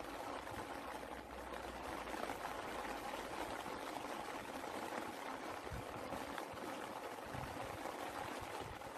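Steady rain falling, an even wash of noise without breaks.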